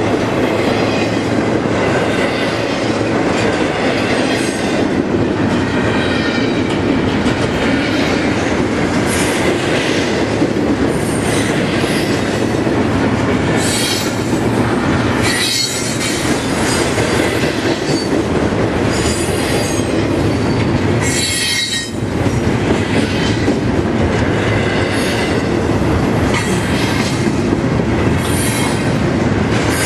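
CSX intermodal container train rolling past close by: a steady loud rumble of wheels on rail with recurring high-pitched wheel squeals, dipping briefly twice.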